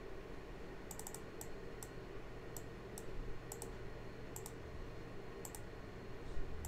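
Light, sharp clicks of computer input, mouse buttons and keys, about a dozen at irregular intervals, many as quick press-and-release pairs, over a faint steady hum.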